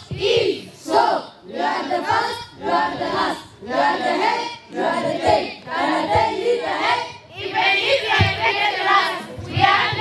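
A group of children's voices, girls, singing together in unison in short phrases about a second apart.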